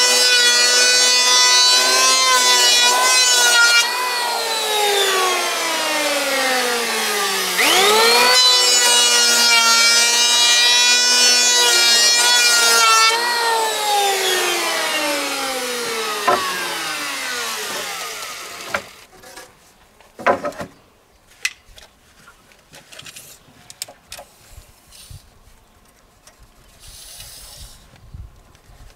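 Electric power tool's motor running at full speed with a steady high whine, then winding down, starting up again with a quick rising whine and winding down a second time. The second run-down ends about two-thirds of the way in, and only faint knocks and clicks follow.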